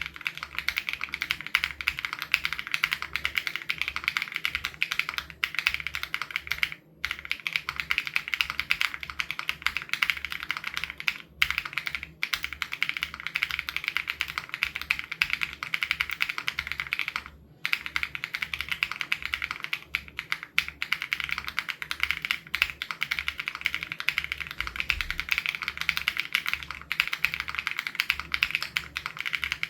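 Continuous rapid typing on an SPM AL87B mechanical keyboard with BSUN Raw switches: a dense stream of keystrokes, broken by a few short pauses.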